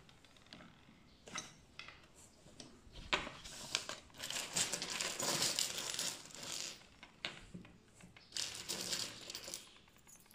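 Small metal fittings (brass connectors, steel clevises, springs and rods) clinking against each other and the wooden tabletop as a hand rakes through a loose pile of them, in short clustered spells of light clinks.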